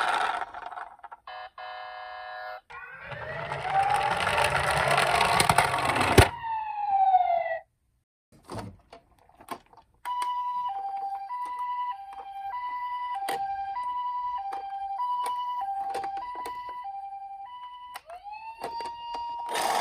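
Toy ambulances' electronic sirens. A rising and falling wail comes first, with a short steady beeping chord. Then, after a pause with a few clicks, a two-tone hi-lo siren alternates about once a second, and near the end another wail starts to rise.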